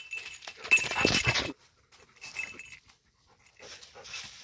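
Golden retriever panting in several noisy bursts, the loudest about a second in.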